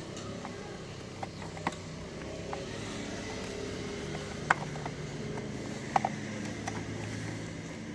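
A motor vehicle engine running steadily, with several sharp plastic clicks as the radiator cover of a Honda Vario 150 scooter is worked off its clips; the two loudest clicks come about halfway through and about six seconds in.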